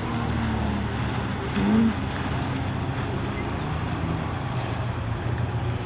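Steady low drone of an engine running, over outdoor background noise, with a short louder pitched sound just under two seconds in.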